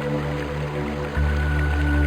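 Slow new-age ambient music of sustained held tones, with the chord shifting and a new high note entering about a second in, over a steady hiss of running water.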